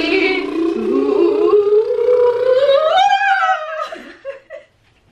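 A woman's voice holding one long sung note, gliding up in pitch about three seconds in and stopping at about four seconds.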